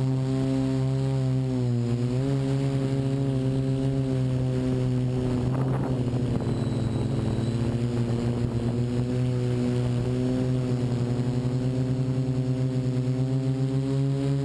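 Multirotor drone's electric motors and 12-inch propellers humming in flight, a low steady drone whose pitch dips and rises as the motors adjust thrust. Rough wind noise rises over it about six seconds in.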